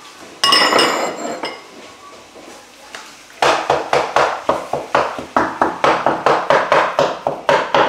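Wooden spoon knocking and scraping in a frying pan, breaking up raw minced meat with quick strokes about three a second. About half a second in there is a short ringing metallic clatter.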